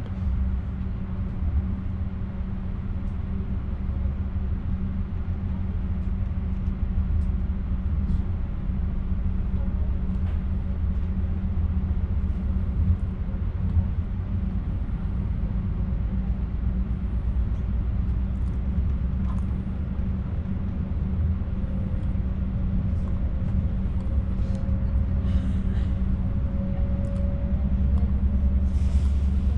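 Passenger train running on the track, heard from inside the carriage: a steady low rumble, with a faint whine that rises slowly in pitch over the second half.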